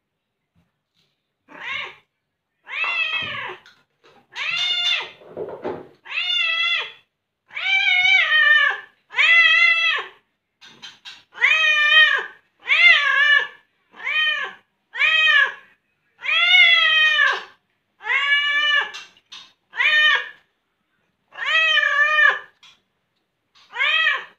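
Orange tabby cat meowing over and over, a long run of about sixteen arching meows, one every second or so. The cat is begging for meat.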